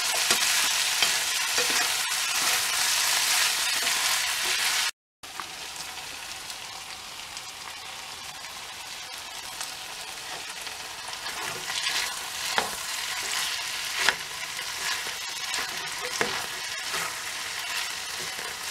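Breaded chicken pieces with diced onion and red pepper sizzling in oil in a frying pan. The sizzle is louder for the first few seconds, cuts out for a moment, and returns quieter. A spatula scrapes and stirs through the pan in the second half.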